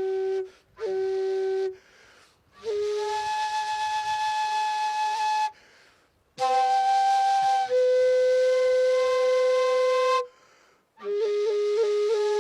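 Pinkuyllo, a long Andean duct flute, played solo. It plays long held notes in short phrases with a breathy tone, and stops briefly between phrases. Near the end it plays a run of quick repeated ornamental note flicks.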